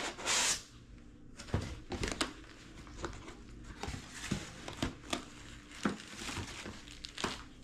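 Rustling and crinkling of packing material as a cardboard shipping box is unpacked, with a foam sheet and plastic air-cushion packing handled and light knocks against the cardboard. The loudest rustle comes right at the start, then short, scattered rustles and taps.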